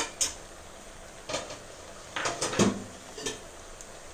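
A spoon clinking and knocking against a cooking pot and serving dish while ghee is spooned over the layered biryani rice: a few single light clinks, then a quick run of knocks about two seconds in.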